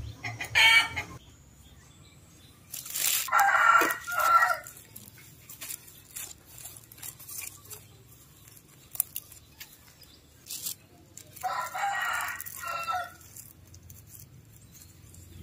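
A rooster crowing twice, about three seconds in and again about twelve seconds in, each crow lasting about a second and a half. Between the crows come faint scrapes and light knocks of hands working loose soil.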